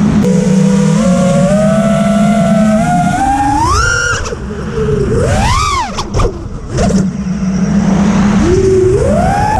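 A 6S-powered FPV quadcopter's brushless motors whining, their pitch rising sharply as the throttle is punched and falling as it is cut. There are three such surges: one about four seconds in, a quick rise and fall near six seconds, and another climb near the end.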